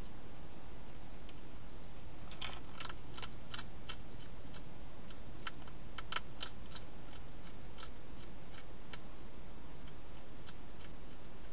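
Wild hedgehog crunching dry food: irregular sharp clicks, bunched about two to three seconds in and again around six seconds in, with scattered single clicks in between, over a steady hiss.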